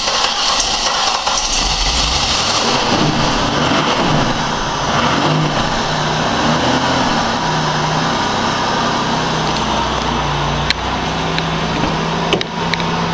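2000 Buick LeSabre's 3.8-litre V6, flooded, cranked with the accelerator held to the floor to clear it: it catches two or three seconds in, runs unevenly with its speed rising and falling, then settles into a steady idle.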